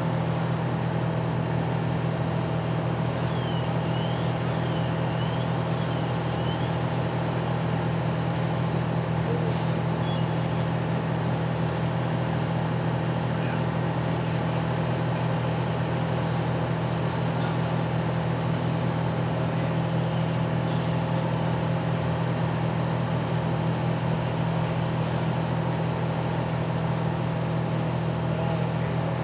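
A steady, low engine drone that runs unchanged throughout. A few faint, high, quick chirps can be heard a few seconds in.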